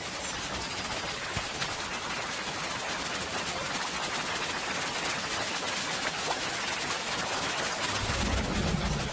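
Heavy rain falling on river water, a steady, dense patter of drops. A low rumble of thunder swells in about a second before the end.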